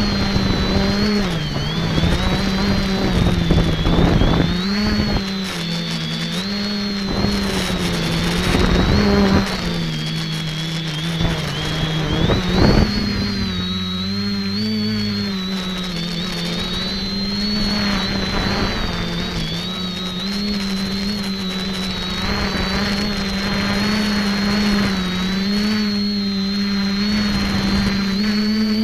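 Electric multicopter's motors and propellers running, heard from the camera mounted on it. The hum's pitch wavers up and down with throttle, and a few louder rushing bursts come through.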